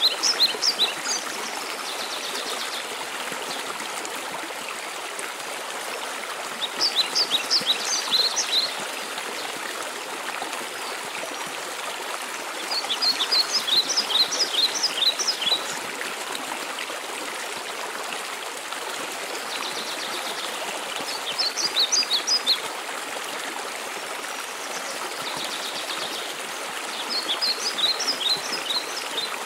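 Waterfall rushing steadily, with a songbird repeatedly singing a short, quick phrase of high notes about every six to seven seconds, about five times.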